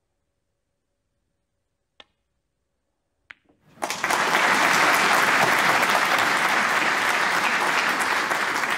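A snooker cue tip strikes the cue ball with a sharp click, then the balls click together about a second later. Audience applause follows and carries on loudly for about five seconds after the point is scored.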